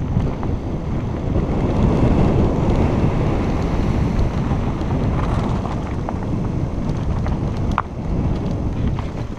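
Wind rushing over a helmet-mounted camera's microphone as a downhill mountain bike rolls fast over gravel, tyres crunching, with a few sharp knocks and clicks from the bike in the second half.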